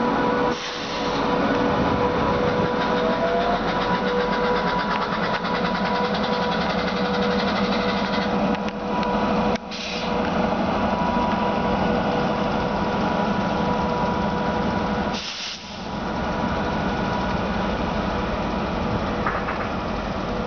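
WAG9 electric locomotive running past with a freight train: a steady whine from its compressor over the noise of wheels on rail. The sound breaks off briefly a few times, about halfway and about three quarters through.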